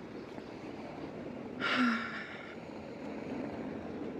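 City street ambience: a steady hum of traffic. A brief, louder, higher-pitched sound comes about one and a half seconds in and lasts under a second.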